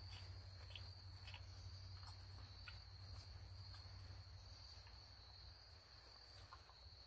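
Near silence: a faint, steady high-pitched insect drone, crickets, over a low rumble, with a few soft ticks.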